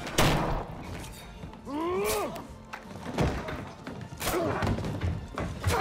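Hand-to-hand fight: several heavy thuds and blows, the loudest just at the start, and a man's strained cry about two seconds in, over a film score.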